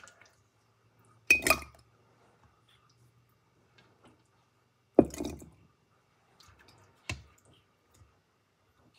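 Jellied turkey stock being spooned into jars: several separate wet plops and knocks, the loudest about a second and a half in and again at about five seconds.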